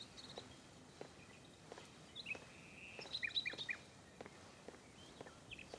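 Quiet ambience of small birds chirping in short, high calls every second or so, with soft, evenly spaced footsteps.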